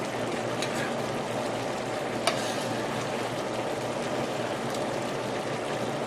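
Cherry pie filling thickened with cornstarch, simmering in a pot on the stove: a steady bubbling hiss, with a single click about two seconds in.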